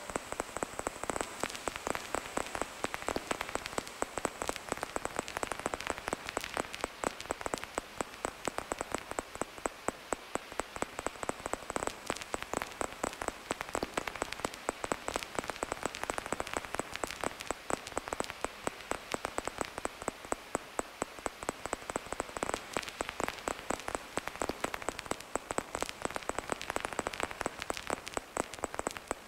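Crackling static noise texture from a live drone-and-noise synth rig (drone box through Kaoss Pad effects): a dense, irregular spray of small clicks over a faint steady high whine.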